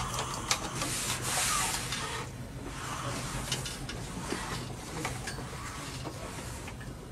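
Rustling and rubbing handling noises that come and go, with a few light clicks over a low steady hum.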